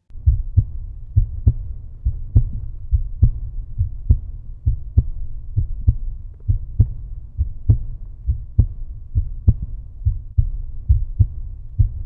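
Outro music: a bass-heavy beat of low thumps, often in pairs, about two to three a second.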